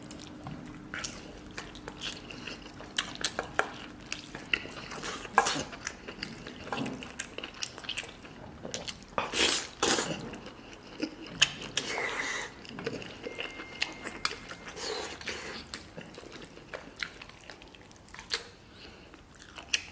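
Chopsticks picking a piece of braised beef out of its sauce and clicking against the pot and bowl, then wet chewing of the saucy meat. The sound is irregular soft clicks and smacks.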